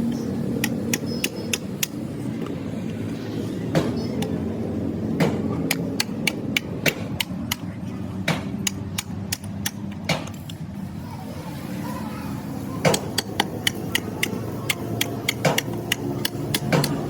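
Hammer striking a steel tractor wheel rim, a series of sharp metallic blows in quick irregular runs, over a steady low rumble.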